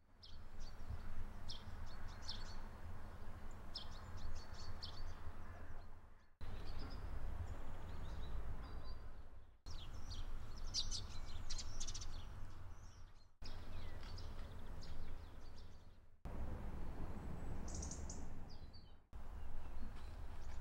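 Small birds chirping in short, quick clusters over a steady low wind rumble on the microphone, the sound breaking off abruptly every three or four seconds.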